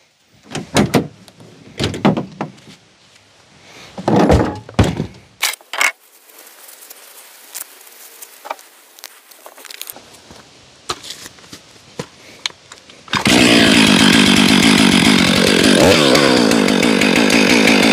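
Knocks and thumps as a pickup tailgate is lowered and gear is handled, then a two-stroke Stihl chainsaw starts suddenly about thirteen seconds in and runs loudly and steadily, its pitch dipping and rising near the end.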